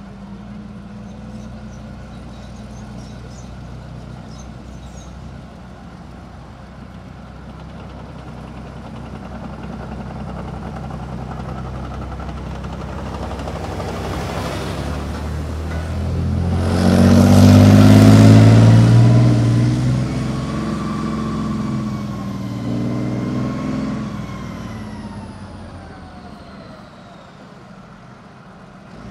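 Bergepanzer 3 Büffel armoured recovery vehicle on tracks driving close past, its MTU V12 diesel engine and track noise building to a loud peak about two thirds of the way in. The sound then fades as it moves away, with a whine dropping in pitch.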